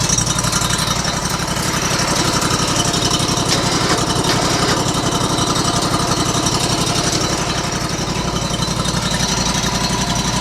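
Portable bandsaw mill's gasoline engine running steadily at idle, with no cut being made.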